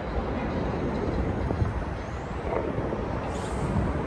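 Steady low rumble of an elevated subway train on the 6 line, with a brief hiss about three seconds in.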